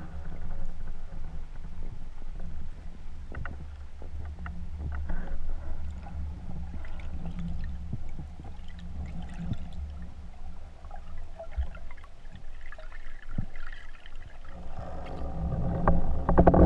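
Underwater sound picked up through an action-camera housing: a steady low rumble with scattered small clicks and crackles. It grows louder near the end.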